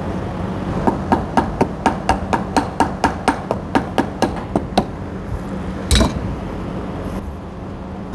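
A hammer tapping rapidly, about five light blows a second for some four seconds, setting glued vinyl down onto a seat frame. One louder single knock follows about six seconds in.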